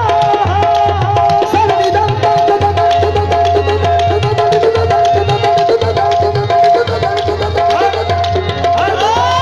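Qawwali music: harmonium melody over a fast tabla rhythm, with a line gliding up into a held note near the end.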